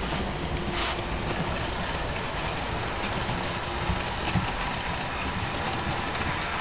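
Several TT-scale (1:120) model trains running on a layout at once: a steady rattle of small wheels over the track and turnouts.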